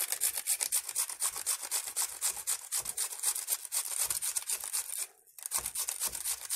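A raw potato being grated on a stainless steel box grater: a quick, even run of rasping strokes with a short break about five seconds in.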